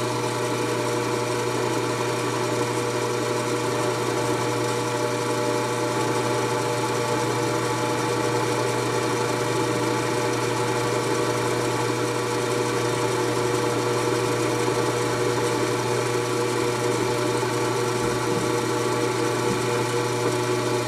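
Rusnok mini mill's spindle running at constant speed, a steady hum with a higher whine, while a 9/64-inch carbide end mill plunges through an old scope base hole in a steel rifle receiver.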